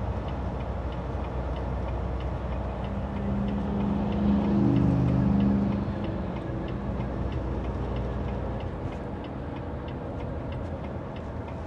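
Semi truck's turn signal ticking evenly, about twice a second, inside the cab over the steady hum of the diesel engine. About four seconds in, the engine hum swells louder for a couple of seconds, then settles back.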